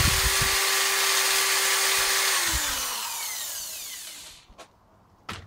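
Corded electric drill running at speed while drilling into a steel mounting plate. The trigger is let go about two seconds in and the motor's whine falls away as it spins down. A single sharp knock comes near the end.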